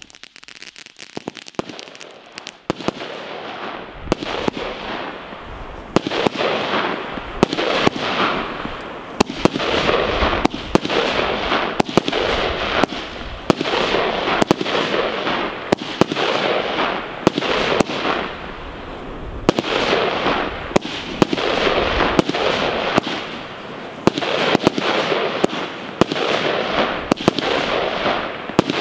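Golden Glow SP100 firework firing a long series of shots: a sharp bang about every second and a half, with a dense hissing wash of bursting gold stars between bangs. It starts faint and builds up over the first few seconds.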